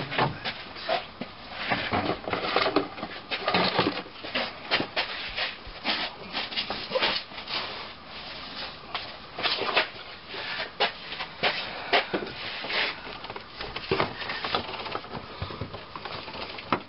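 Hands working plastic engine-bay parts and rubber hoses: irregular clicks, taps and rubbing as the hoses are routed and pressed back into their plastic clips.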